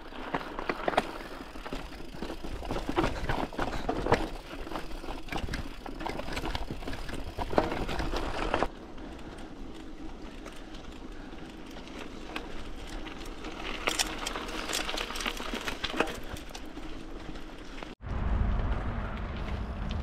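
Footsteps crunching and scuffing over stony, brushy ground, an irregular run of clicks and crackles. Near the end, a low rumble of wind buffets the microphone.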